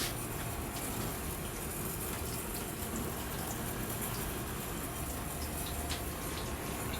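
Beef cooking in a pot, a steady sizzle with faint scattered crackles.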